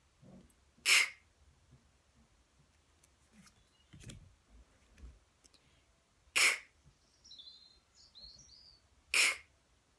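A woman saying the unvoiced phonics sound /k/ as a pure sound: three short, breathy 'k' puffs with no vowel after them, about a second in, then twice more in the second half. Faint bird chirps can be heard between the last two.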